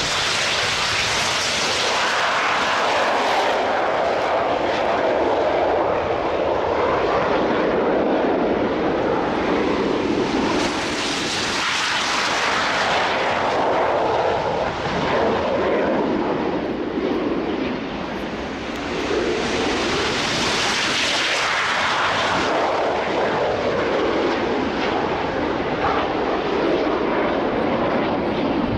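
A fixed-wing aircraft flying overhead, its engine sound continuous and rising and falling as it manoeuvres. It swells to louder peaks three times, about every ten seconds.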